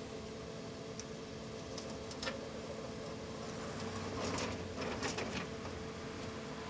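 Rusty steel cellar bulkhead door being heaved open: a short stretch of metal scraping and knocking about four to five and a half seconds in, with a few light clicks before it, over a steady faint hum.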